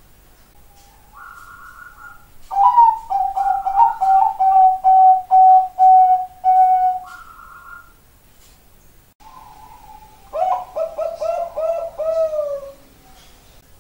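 Perkutut (Bangkok-line zebra dove) cooing: two phrases of rapid, short pitched notes over a steady hum-like tone, the second coming after a short gap and ending in a falling note.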